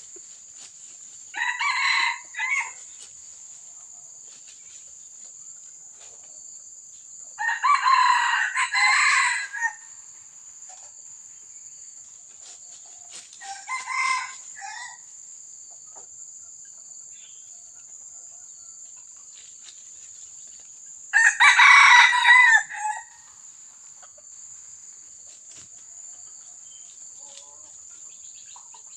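Red junglefowl crowing four times, short clipped crows spaced several seconds apart, the last the loudest, over a steady high insect drone.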